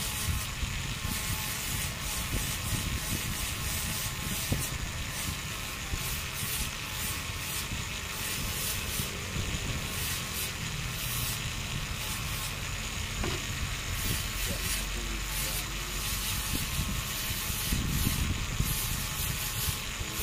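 Handheld rotary tool running steadily, its small sanding disc grinding against carved wood, a little louder near the end.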